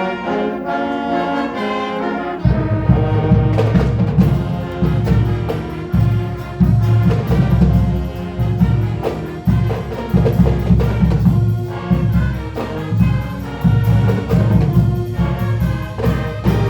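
Marching band playing: brass lines, then a loud low bass part with a pulsing beat comes in about two and a half seconds in.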